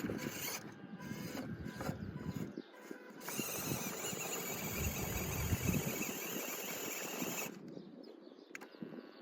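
Small electric motor and gearbox of an RC scale truck whining under load while climbing, rough and uneven at first, then a steadier, higher whine from about three seconds in that drops away near the end.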